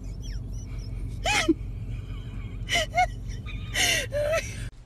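A pug makes three short, breathy squeaking grunts about a second apart while being fed, over a steady low hum.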